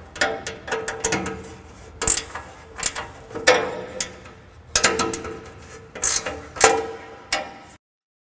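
Wrench tightening a carriage bolt nut on a steel bracket: irregular sharp metallic clicks and clinks, some with a short ring. The sound cuts off suddenly near the end.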